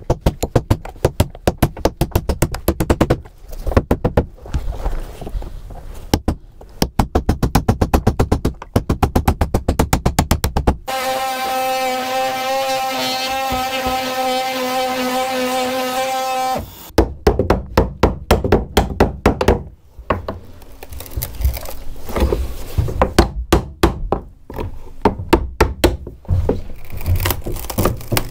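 Steel hammer striking a chisel in quick runs of blows, cutting into a wooden boat frame. About eleven seconds in, an oscillating multi-tool runs for roughly six seconds with a steady whine. Then the hammer-and-chisel blows resume.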